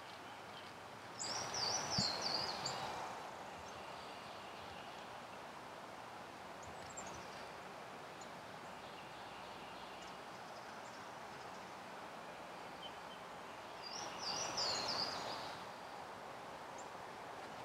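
Quiet outdoor ambience with a songbird singing a short, high warbling phrase twice: about a second in, and again near the end. Each phrase comes with a brief swell of rustling.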